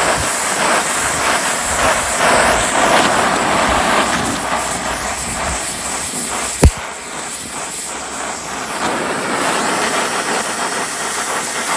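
Gas torch flame hissing steadily while heating a corroded, seized bolt in an aluminum height stick to free it. One sharp knock comes a little past halfway.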